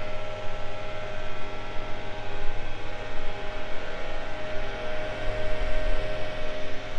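Steady machinery hum holding several even tones over a low rumble, with the rumble swelling briefly around five to six seconds in.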